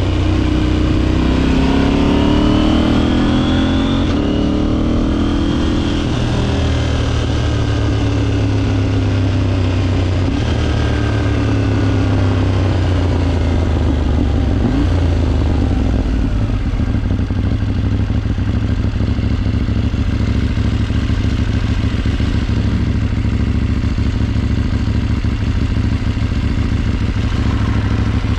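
KTM 790's parallel-twin motorcycle engine under way. The pitch rises over the first few seconds as it accelerates, drops back, climbs again briefly, then settles into steadier, lower running for the second half.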